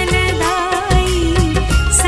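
Hindu devotional bhajan music: a wavering melody over a steady drum beat and bass.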